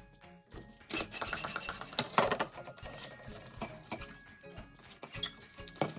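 Latex modelling balloons squeaking and rubbing in rapid, scratchy streaks as they are handled and twisted, starting about a second in, over soft background music.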